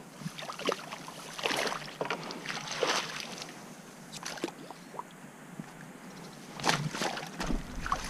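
A small hooked fish thrashing at the surface in shallow water as a landing net is dipped in: a series of irregular splashes, the loudest about a second and a half in, around three seconds in, and near the end.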